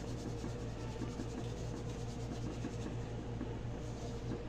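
Steady low hum with a light background hiss and no distinct sound events.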